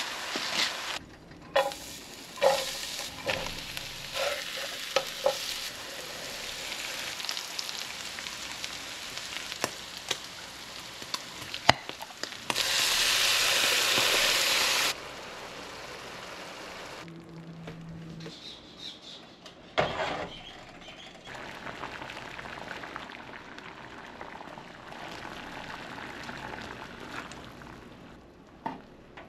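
Ground beef frying and sizzling in a nonstick frying pan as it is stirred, with short clicks in the first few seconds. Near the middle there is a much louder sizzle for about two seconds as tomato sauce goes into the hot pan.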